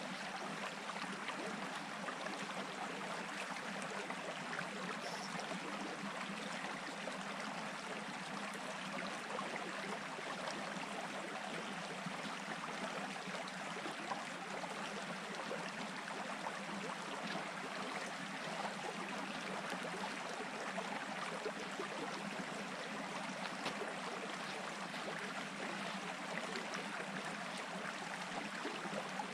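Small stream running over stones and gravel, a steady babble.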